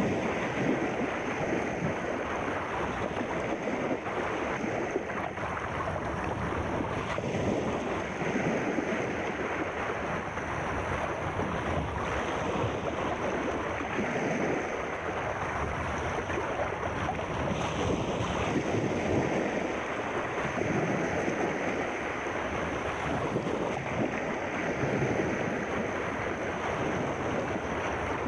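Sea waves washing, a steady rushing noise that swells and eases every few seconds.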